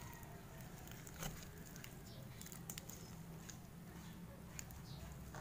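Sticky green slime with jelly cubes being stretched and kneaded by hand, giving faint scattered soft clicks and pops over a low steady hum.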